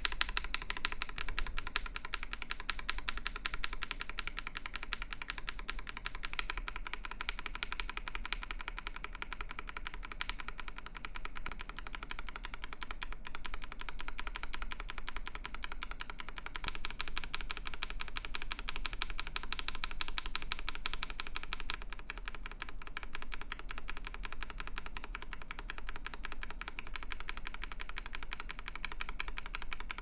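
Fast, continuous typing on a KBD67 Lite mechanical keyboard fitted with stock, unlubed switches: a dense stream of keystroke clacks. The switches change partway through, to Banana Splits and then to Hippos near the end, and the clacking changes character a little at each swap.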